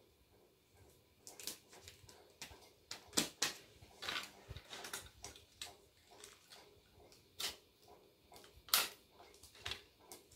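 Paper and craft supplies being handled: irregular rustles and short taps, the sharpest about three seconds in and again near the end.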